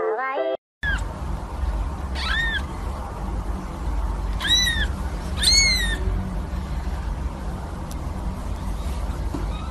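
A newborn kitten mewing three times: thin, high-pitched squeaks, each rising and then falling in pitch, over a steady low rumble.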